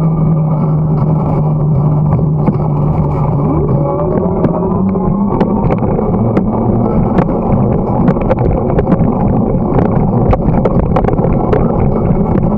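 Riding noise from a bicycle-mounted camera on a cleared winter path: wind rushing over the microphone and tyres on the asphalt, with a steady low hum that steps up in pitch about five seconds in. Many sharp clicks and rattles from bumps, more of them in the second half.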